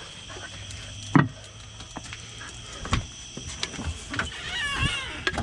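A storm door being handled and opened: scattered clicks and knocks, the loudest a sharp knock about a second in, then a wavering squeak near the end. A steady high insect chirring runs underneath.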